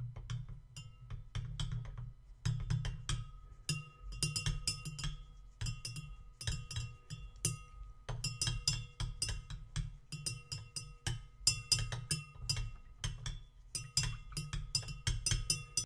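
Glass stirring rod clinking rapidly and unevenly against the inside of a large glass lab beaker while stirring water, each tap leaving the beaker ringing with a clear, glassy tone, over a low swish of the stirred water.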